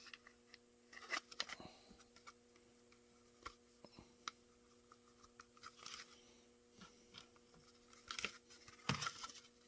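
Faint scattered clicks and light rattles of small screws and nuts being picked out and handled, over a low steady hum.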